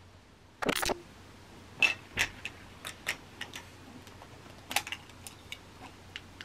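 Light, irregular clicks and taps of small objects being handled: a quick flurry about half a second in, then scattered single taps, and a second short flurry near the five-second mark.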